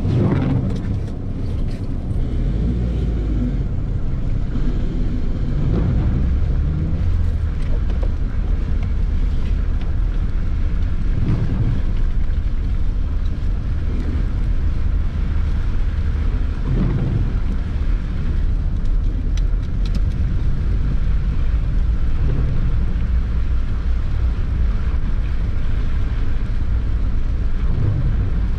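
Suzuki Vitara 4x4 heard from inside its cabin while driving slowly over a wet, slushy street: a steady low rumble of engine and tyres, with a few brief knocks.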